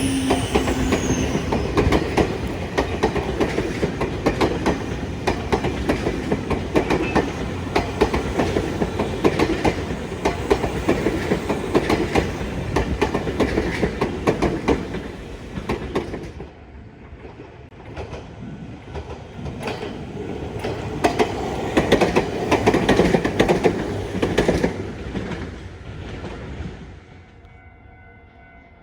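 Nankai Line electric train passing, its wheels clattering rapidly over the rail joints. The sound drops about two-thirds of the way in, swells again for a few seconds, then fades away near the end.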